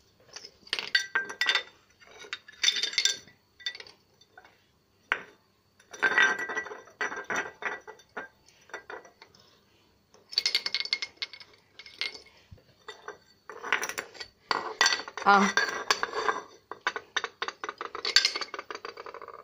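Shards of a broken ceramic mug clinking against each other and the tiled floor as they are handled, in several clusters of quick clicks.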